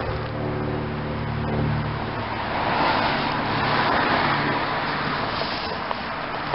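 A car driving past: engine and tyre noise that swells to a peak about three to four seconds in, then fades.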